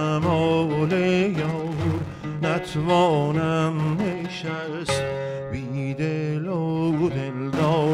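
Traditional Persian music: an oud plucked with a daf frame drum accompanying it, a few sharp drum strokes standing out, under an ornamented, wavering melodic line that sounds like wordless singing.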